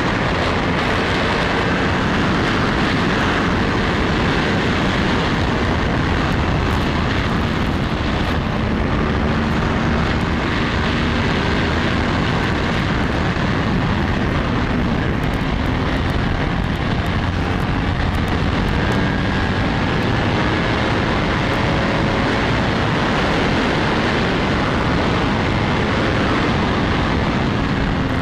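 Yamaha YZF-R1 sport bike riding at highway speed: a steady rush of wind over the microphone, with the inline-four engine running underneath at a steady pitch.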